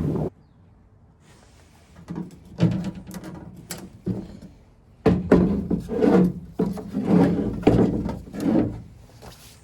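A run of knocks, clunks and rubs from parts and tools being handled during work on a truck's tailgate. They start about two seconds in and come thickest from about five seconds on.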